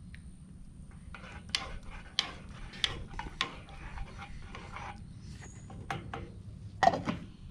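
Metal spoon stirring corn in a small saucepan, scraping and clinking against the pan in irregular strokes, with one louder clank near the end.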